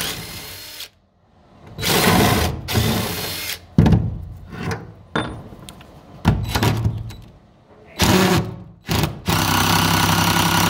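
Cordless DeWalt 20V impact driver hammering at the bed bolts that hold an old truck's wooden bed floor, backing them out. It runs in several short bursts with pauses between, then in one longer run near the end.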